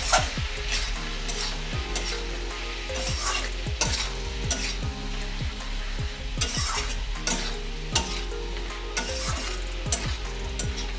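Metal spatula stirring and scraping vegetables and ground spices around a metal kadai over a frying sizzle, with frequent short scrapes and knocks against the pan as they are sautéed.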